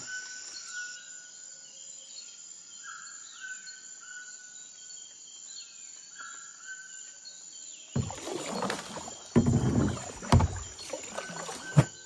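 Rainforest ambience: a steady high insect drone with a few short whistled animal calls that rise and fall. From about eight seconds in, a kayak paddle takes several loud strokes, splashing in the water.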